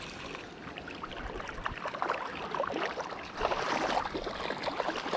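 Shallow creek water running and babbling over a gravel bed, an irregular stream of small splashes and trickles, a little louder from about three and a half seconds in.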